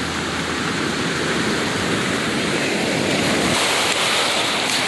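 Surf washing over a pebble beach: a steady rush of waves, swelling a little about three seconds in.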